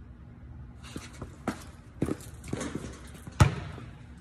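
A basketball bouncing and footsteps on a concrete warehouse floor, a few scattered thuds with one much louder bang about three and a half seconds in, echoing in the large room.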